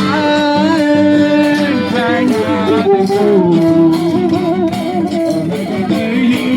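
Music: a sung melody with wavering held notes over plucked guitar accompaniment.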